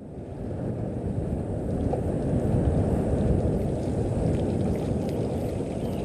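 Steady low rumbling outdoor noise, rising over about the first second and then holding, with no clear animal call.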